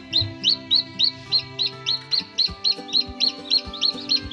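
Newly hatched Brahma chicks peeping: a steady run of short, rising peeps, about four a second, with background music underneath.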